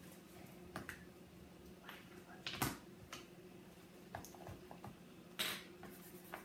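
Quiet, scattered clicks and taps from hands working with slime-making containers and utensils, with a sharper tap about two and a half seconds in and a short rustle a little after five seconds.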